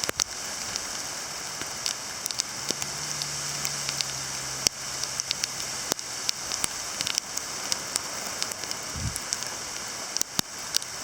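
Small hail and ice pellets falling steadily: a constant hiss with many sharp ticks of pellets striking surfaces.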